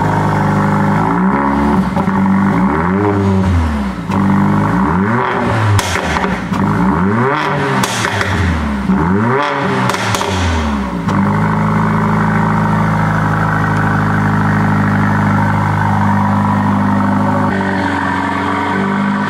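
The Mercedes-AMG CLA45's 2.0-litre turbocharged four-cylinder engine being revved repeatedly: a series of quick revs that rise and fall, with a few sharp cracks among them. About 11 seconds in it settles to a steady run, then is revved once more near the end.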